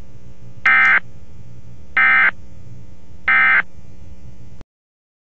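Emergency Alert System end-of-message data tones: three short, harsh digital bursts about a second apart, marking the close of the tornado warning broadcast. A steady hum runs underneath, and the audio cuts off abruptly near the end.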